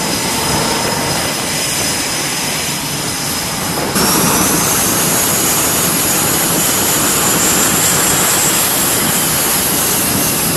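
Twin jet engines of F/A-18 Hornets running on a carrier flight deck: a steady noise with a high whine. About four seconds in it jumps louder, and a high whine rises slowly for a few seconds.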